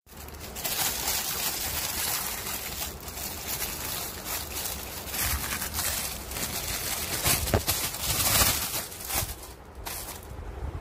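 Clear plastic packaging rustling and crinkling as a pair of foam home slippers is handled and turned over, an irregular crackle that gets louder for a moment a little after halfway.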